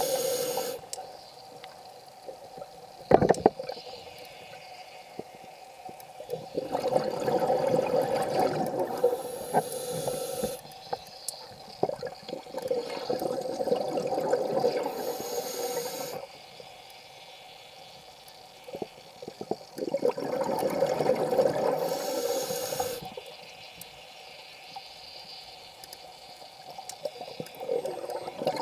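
Scuba diver's regulator breathing underwater: exhaled air bubbling out in long bursts of a few seconds, three of them with quieter stretches between, and a fourth starting near the end. A sharp knock about three seconds in.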